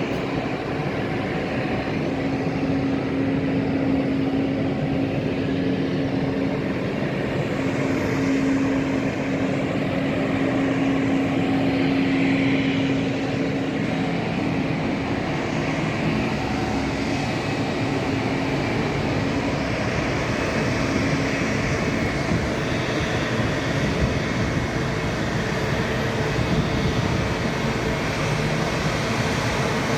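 Airbus A220's Pratt & Whitney geared turbofan engines running, a steady jet noise with a low humming tone that fades out about two-thirds of the way through.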